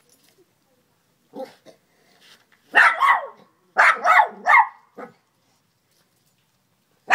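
Pet dog barking at a river crayfish: a couple of soft yips, then one loud bark and a quick run of three barks, and a last softer one.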